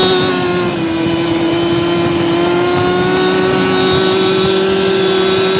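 Snowmobile engine running at steady high revs, its pitch dipping slightly about a second in and then holding.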